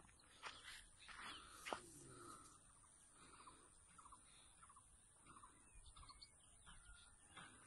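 Faint bird calls: a short note repeated about twice a second, over quiet outdoor background, with a few soft knocks or rustles in the first couple of seconds.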